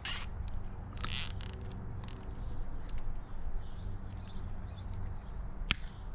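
Plastic cable tie being pulled tight around a wire, a short ratcheting zip about a second in after a brief rasp at the start, with light handling clicks and one sharp click near the end.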